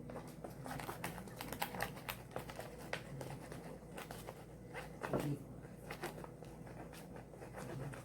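Homemade glue slime being stirred and squished, a run of irregular sticky clicks and crackles, a little louder about five seconds in.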